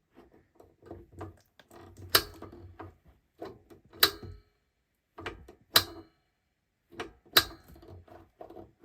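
Piezo igniter of a Buddy propane heater clicking four times, about every second and a half to two seconds, with small knocks of the control knob being worked between clicks, while the pilot is being lit.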